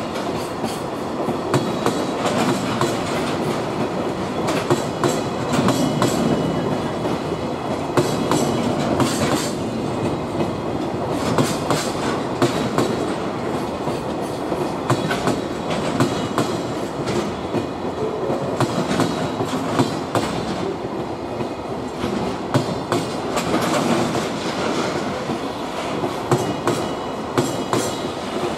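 Freight train of Koki 107 container flat wagons rolling steadily past close by, wheels clacking over the rail joints in a continuous run of sharp clicks.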